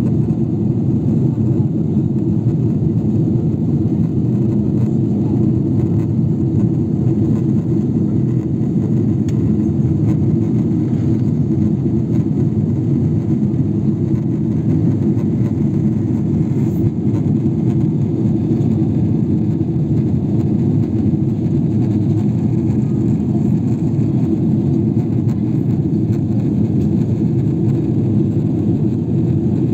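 Steady, low-pitched cabin noise inside a Boeing 777-300ER airliner in flight: the hum of its GE90 jet engines mixed with the rush of air past the fuselage.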